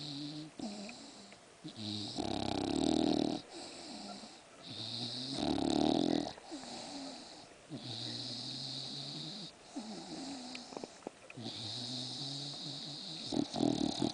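English bulldog snoring in a steady rhythm, a breath about every two seconds, with two louder snores about two and five seconds in and a few short snorts near the end.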